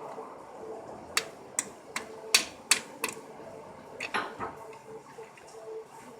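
A series of sharp clicks and taps: about six in quick succession, a second or so in, then a couple more a little later.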